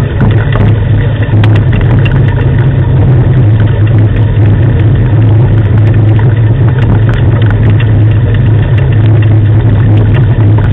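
Steady loud rumble and rattle of a dog-team training rig rolling over a gravel road, with scattered sharp clicks and knocks.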